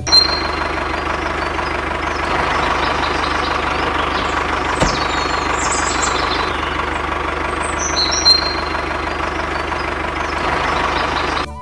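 An engine running steadily at idle: a dense, even mechanical drone with a fast low pulse. A single thump comes about five seconds in.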